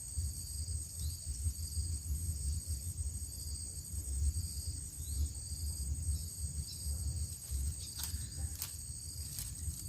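Outdoor ambience: low wind rumble on the microphone under a steady high insect trill that pulses evenly, with a few sharp clicks near the end.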